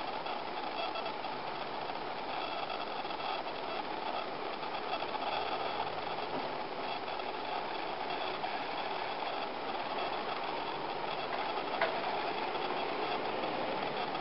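Steady background hum and hiss, with one short click near the end.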